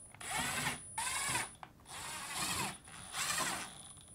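Milwaukee FUEL cordless driver running screws into a refrigerator's sheet-metal back cover, in four short runs with the motor's pitch rising and falling each time.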